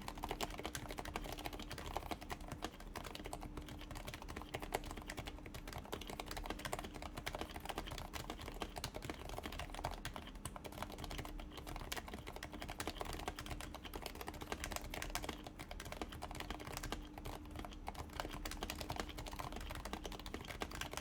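Fast, continuous typing on a Happy Hacking Keyboard Professional with aged, lubed and silenced Topre 45 g electrostatic-capacitive switches under PBT doubleshot keycaps: a dense, irregular run of soft, muted key thocks.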